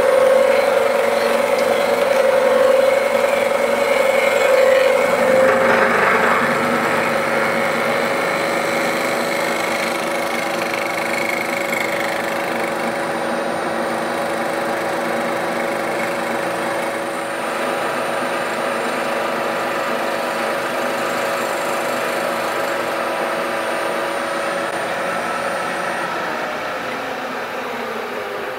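Bridgeport vertical milling machine running steadily with a constant tone, its face mill taking a light skim cut across the face of a mild steel plate.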